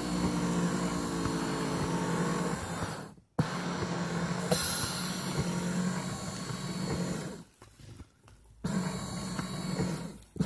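Electric foot massager running, heard from inside the machine: a steady motor hum with churning from the moving massage parts. It cuts out briefly about three seconds in, drops low for about a second near eight seconds, and dips again at the very end.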